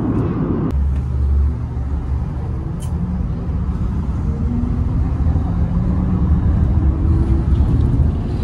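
Under a second of airliner cabin hum, then, after a sudden change, the interior of a city bus: a steady low engine rumble with a faint whine that rises in pitch a few times.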